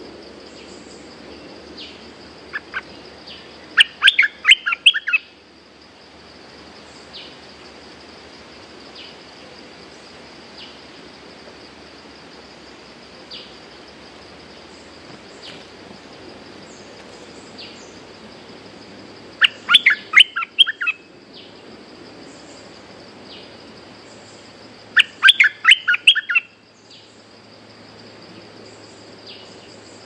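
Bulbul song: three short bursts of quick, bubbling notes, about 4 seconds in, about 20 seconds in and near the end. Between the bursts there is a faint, steady, high insect drone.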